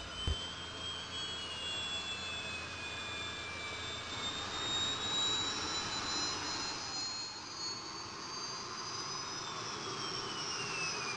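Aircraft turbine engine whine over a steady rushing noise, with several high tones slowly rising and falling in pitch.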